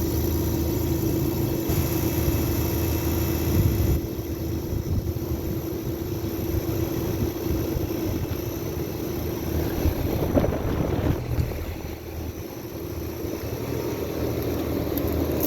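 Outdoor central air-conditioner condensing units running: a steady mechanical hum from the compressors and condenser fans.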